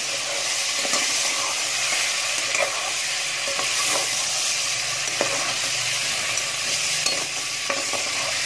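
Chicken pieces sizzling in hot oil with ginger-garlic paste in a metal pot, stirred with a metal slotted spoon that scrapes and knocks against the pot every second or so. The chicken is being browned while its own water cooks off.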